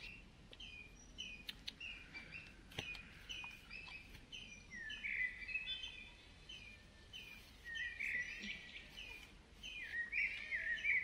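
Birds singing: a steady run of short repeated chirps, about two or three a second, joined about halfway through by louder, longer calls, with a few faint clicks.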